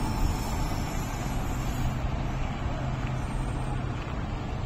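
Steady low rumble of a WAP-4 electric locomotive hauling a passenger rake slowly, with a steady hum that fades out near the end.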